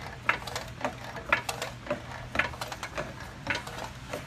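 Floor jack being pumped to lift the front of a car: a short mechanical click-clunk with each stroke of the handle, about twice a second.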